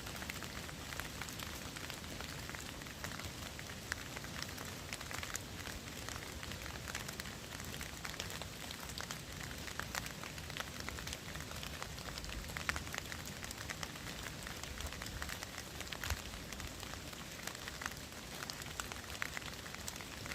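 Steady rain falling, with many scattered drops tapping and pattering on surfaces close by.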